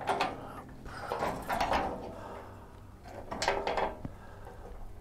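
Three short scraping, sliding sounds, like objects being pushed or dragged while handled: one near the start, a longer one around a second in, and another about three and a half seconds in.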